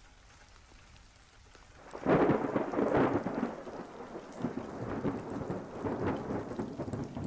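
Thunderstorm: faint rain, then a thunderclap about two seconds in that rolls and rumbles on, slowly fading.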